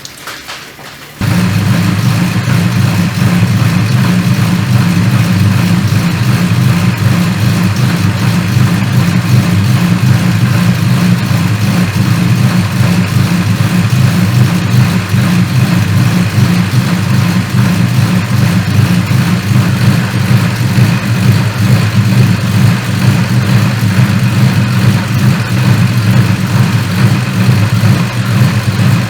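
Turbocharged Ecotec V6 car engine idling steadily. It cuts in suddenly about a second in and holds an even, deep note with no revs.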